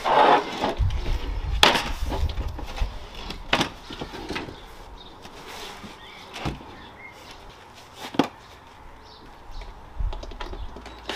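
Wooden boards being handled on a trestle table: scraping at first, then a handful of sharp knocks and clunks a second or two apart as the panels are stood up and laid down.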